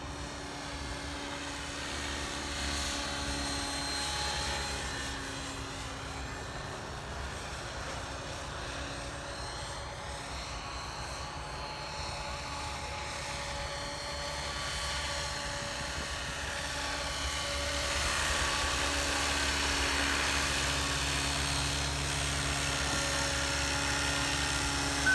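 Synergy E5 electric radio-controlled helicopter in a scale MD500 body flying: a steady whine of motor and rotor blades. It grows louder over the last several seconds as the model comes in close and hovers low.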